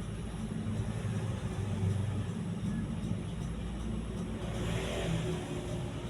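Ceiling fan running with a steady low motor hum, and a brief swell of louder noise about five seconds in.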